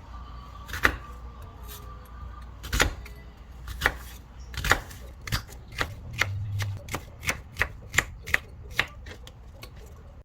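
Kitchen knife chopping on a cutting board: a series of sharp knocks, spaced out at first and then coming faster, about two or three a second.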